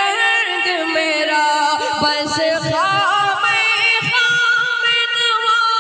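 A man singing a naat, a devotional Urdu and Persian poem, holding long notes that glide and waver between sung lines.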